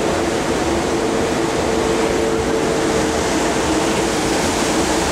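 Ferry's engines droning steadily, a constant hum under a rushing wash of wind and water on deck.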